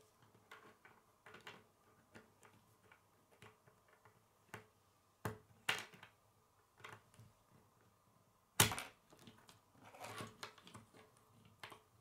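Plastic K'nex rods and connectors clicking and rattling as they are handled and snapped together, at an irregular pace, with one louder snap about eight and a half seconds in.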